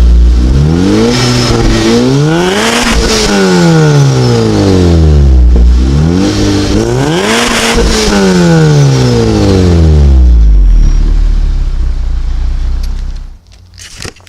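Supercharged 2014 Honda Civic Si's 2.4-litre four-cylinder engine revved twice while parked, each rev rising to a peak and falling back over about five seconds, then settling to idle before it goes quiet near the end. The exhaust runs through a newly fitted Full Race catted downpipe with the stock exhaust, and it is a little louder than the stock cats.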